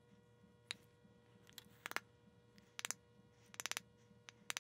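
Small hammer tapping lightly on a wooden moving fillister plane, a dozen or so sharp taps, some single and some in quick groups of two to four, to knock the nicker back because it is set a little too deep.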